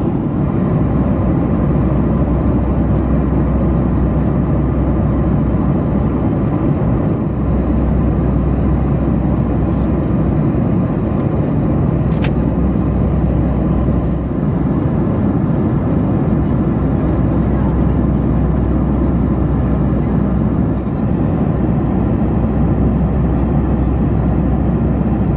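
Steady cabin noise of a Boeing 737 MAX in cruise, heard from inside the cabin: an even low rumble and rush of engines and airflow.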